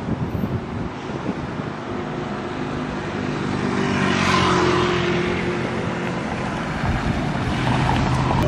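Street traffic, with a motor scooter passing close by about four seconds in, its engine swelling and fading over a steady traffic hum.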